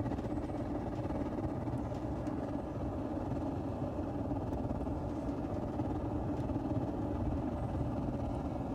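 Smudge pot orchard heater burning motor oil on high, its stack giving a steady, even low rumble.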